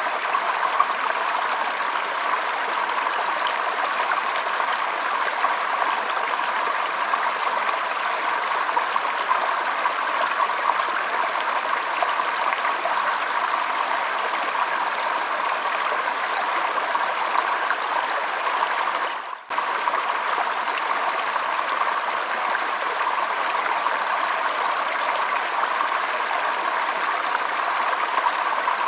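Shallow stream flowing and trickling, a steady even rush of water. About two-thirds of the way through the sound drops out for a split second, then carries on unchanged.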